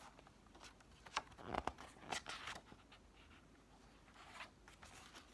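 Paper pages of a picture book rustling and crackling as the book is handled and turned over, a cluster of quick crinkles between about one and two and a half seconds in and a softer one near four and a half seconds.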